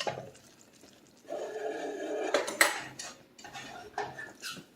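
Saucepan and metal spoon clattering and clinking as the pot of boiled caramel is taken off the stove, with a rough scrape lasting about a second, followed by several sharp knocks.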